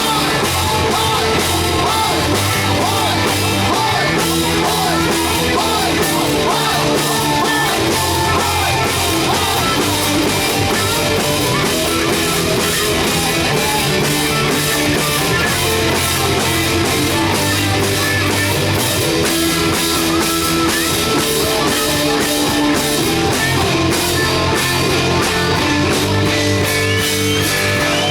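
Rock band playing at full volume: drum kit keeping a steady beat under guitar, bass and singing.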